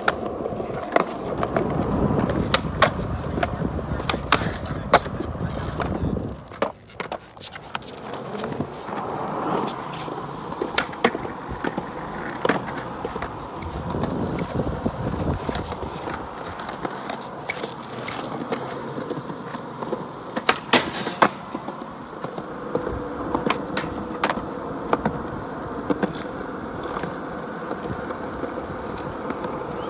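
Skateboard wheels rolling over a concrete skatepark surface, broken by repeated sharp clacks of the board being popped and landing, with a quick cluster of clacks a little past two-thirds of the way through.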